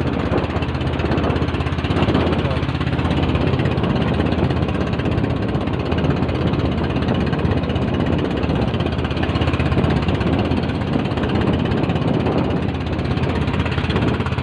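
A fishing boat's engine running steadily, with a continuous low hum.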